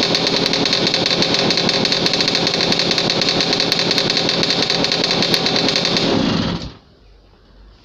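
Romet Komar moped's Dezamet 017 single-cylinder two-stroke engine running steadily with a fast even rattle, on its first run after about five months laid up over winter. About six seconds in it stops, dying away within half a second.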